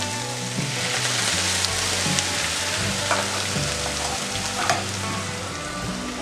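Liquid hitting a hot frying pan of sliced mushrooms: a loud sizzle and hiss that swells about half a second in and eases off after about three seconds, with a few sharp clicks later on, the loudest about two-thirds through.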